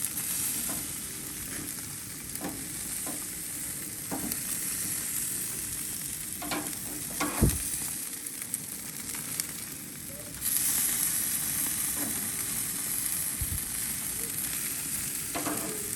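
Filet mignon steaks sizzling on the hot grates of a propane grill, with a few light clicks and knocks. The sizzle grows louder about ten seconds in.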